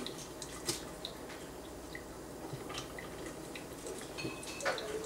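Quiet kitchen room tone with a few faint clicks and taps. Near the end comes a short held vocal sound that dips in pitch and then holds.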